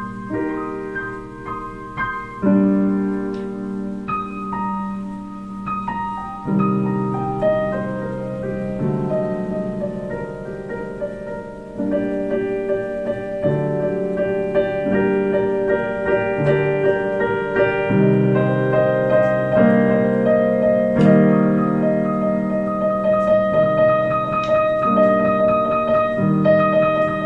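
Kawai digital piano played in a slow improvisation: held chords under a melody line, growing louder about twelve seconds in.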